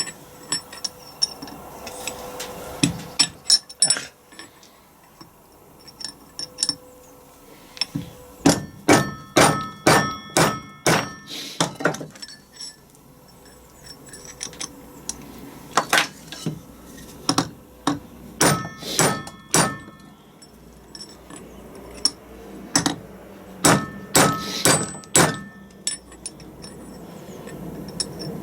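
Hammer blows on a steel drift, driving a bearing race out of an LT230 transfer box part. The strikes are sharp and ring metallically, coming in bursts of several blows at about two a second, with a few lighter knocks early on.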